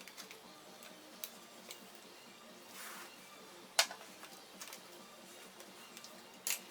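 Scattered light clicks and taps of plastic and metal laptop parts and tools being handled during a disassembly, with a sharper click a little past the middle and another near the end.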